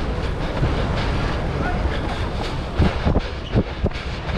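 Wind rumbling on the microphone of a GoPro Hero 8 carried while running, over steady outdoor street noise, with a few short low thumps about three seconds in.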